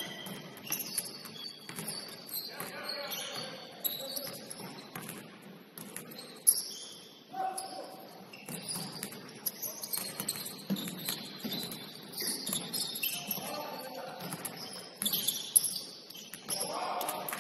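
Indoor basketball game on a hardwood court: sneakers squeaking in short high chirps, a basketball bouncing on the floor, and players calling out, with a couple of sharper thuds about six and a half and fifteen and a half seconds in.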